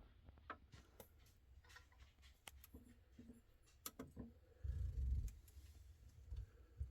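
Faint scattered clicks and light knocks of small objects being handled, with a low dull thump about five seconds in.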